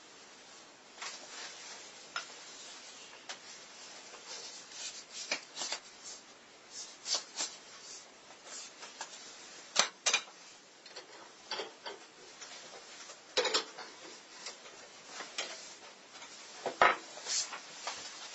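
Irregular clicks, taps and short scrapes of hand tools and a small workpiece being picked up, set down and worked on a wooden workbench, with a few sharper knocks, the loudest near the end.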